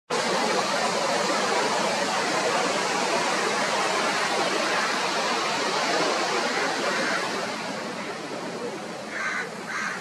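Steady rushing outdoor noise, like surf or wind, easing off a little in the last few seconds, with two short higher sounds just before the end.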